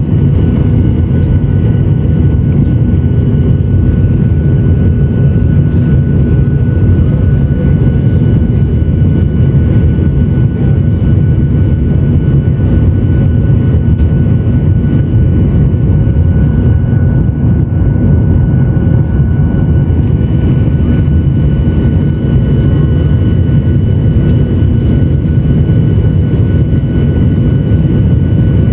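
Jet airliner engine noise heard inside the cabin while climbing after takeoff: a loud, steady low rumble with a thin, constant high whine above it.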